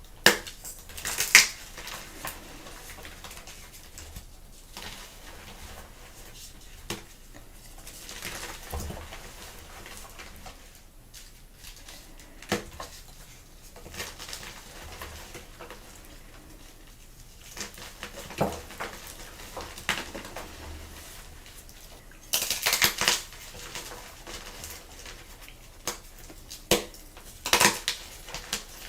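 Blocks of gym chalk being crushed: irregular sharp crunches and cracks, with softer powdery crumbling between and a loud cluster of crunches about three-quarters of the way through.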